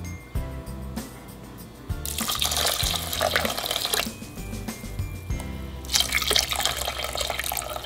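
Tomato dashi poured onto uncooked rice in a rice cooker's inner pot, splashing in two pours of about two seconds each, over background music.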